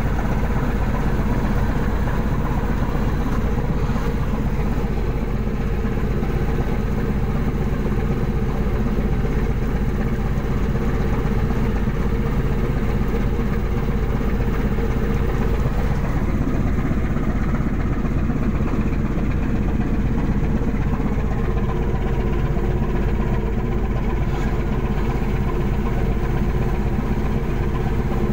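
Loud, steady drone of engine and deck machinery aboard a longline fishing boat. About two-thirds of the way in, one tone within it sinks slightly.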